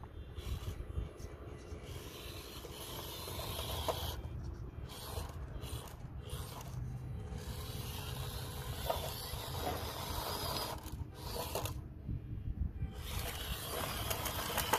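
Hobby Plus CR-18 1/18-scale RC crawler climbing rock: its brushed motor and gears run in spurts, and its tires scrape and rub over rock and loose gravel. A steady low rumble runs underneath, and the motor noise stops briefly about four, six and twelve seconds in.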